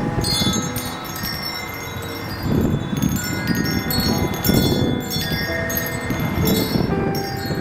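Wind chimes clanging irregularly in strong gusts, many ringing tones at different pitches, over a surging low rumble of wind.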